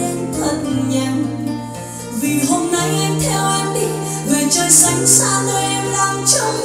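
Music playing from Dali Zensor 1 AX active bookshelf speakers: a guitar-led, plucked-string passage over held bass notes that change every second or two.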